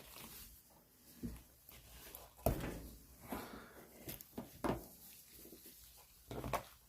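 Faint handling noises: scattered light knocks and scrapes, about one every second, as a pair of sprue cutters is worked at, stuck tight in its slot in a tool case.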